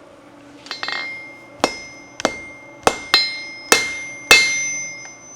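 Blacksmith's hammer striking a flat steel bar on an anvil to forge a knife point. A short metallic clatter comes about a second in, then six blows land roughly half a second apart, each leaving a ringing tone.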